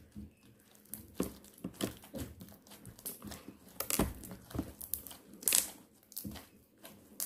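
Clear slime being kneaded, stretched and pressed flat on a tabletop by hand, giving irregular crackling and popping, with the loudest pops about four and five and a half seconds in.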